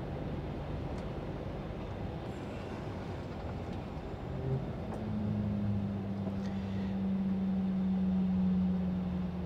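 Heavy truck driving, its engine and road noise a steady rumble. About five seconds in a steady engine hum comes up and grows a little louder.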